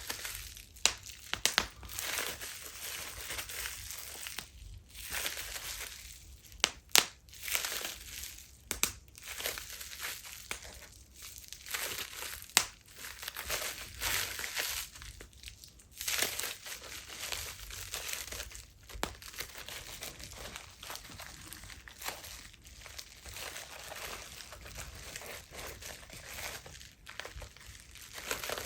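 Plastic bubble wrap being crinkled and squeezed close to the microphone, a steady rustle broken by sharp pops of bursting bubbles, several loud ones scattered irregularly.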